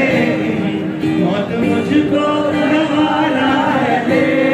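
A man singing live into a microphone over loudspeakers, a melodic sung line with music behind it.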